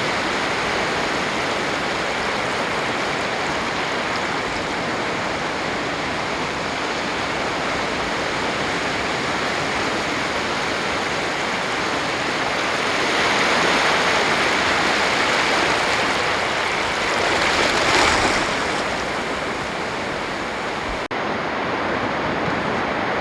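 Surf on a sandy beach: a continuous rush of breaking waves, swelling to a louder wave breaking about two-thirds of the way in, then easing off.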